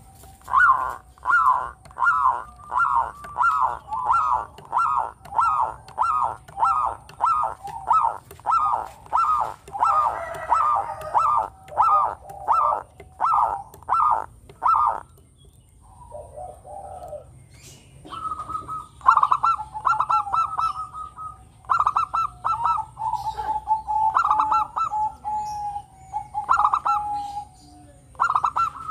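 Zebra dove (local perkutut) singing. First comes a quick run of short, clipped coos, about two a second, for some fifteen seconds. After a brief pause come phrases of high clipped notes that run into longer, lower held coos. A faint steady high-pitched whine lies underneath.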